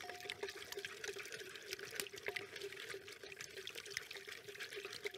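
Egg-yolk mixture poured slowly in a thin stream into hot milk in a ceramic pot while a wooden spoon stirs, with many faint clicks of the spoon against the pot.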